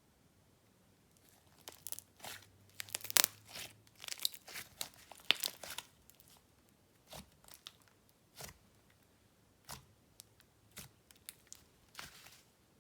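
Slime being handled and stretched, giving off sticky clicks, pops and crackles. A dense run of crackling in the first half thins to scattered single pops in the second half.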